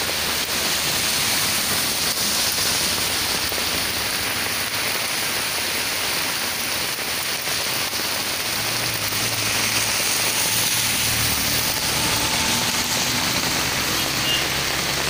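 Muddy rainwater runoff rushing fast down an open earthen channel into a storm water drain: a steady rush of water. A faint low hum joins it about halfway through.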